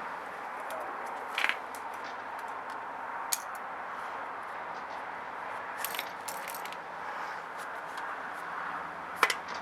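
Scattered light clicks and rattles from handling the generator's recoil starter assembly as the new rope is finished off, over a steady background hiss.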